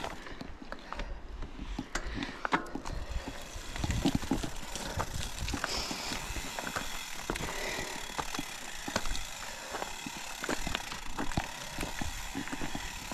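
Mountain bike ridden over a rough single-track trail: tyres rolling over dirt and stones, with irregular knocks and rattles from the bike.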